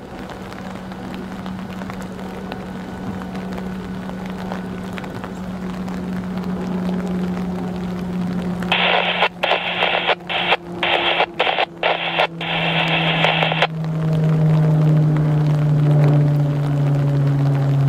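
Diesel locomotive engine droning as the train approaches, growing louder, its pitch dropping in the last few seconds. From about nine to fourteen seconds a choppy radio transmission cuts in over it, tinny and breaking off sharply several times.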